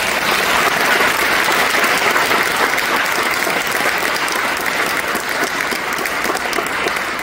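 Audience applauding: many people clapping together in a dense, steady patter that eases a little near the end.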